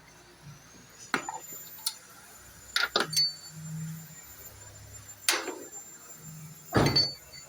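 A handful of sharp, separate knocks and clanks, some with a brief metallic ring, over a faint low hum.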